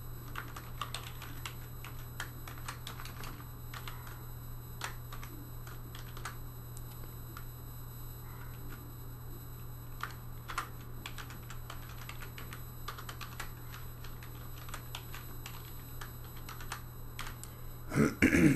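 Typing on a computer keyboard: irregular runs of keystroke clicks as a line of code is entered, over a steady low hum. A short louder noise comes near the end.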